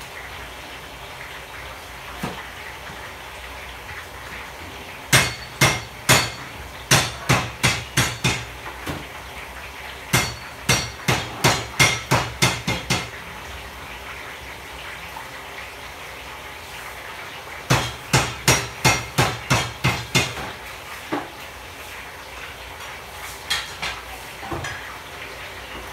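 Kitchen knife chopping on a cutting board: three runs of quick sharp strikes, two to three a second, the first about five seconds in and the last ending about twenty seconds in, with a few single knocks near the end, over a steady background hiss.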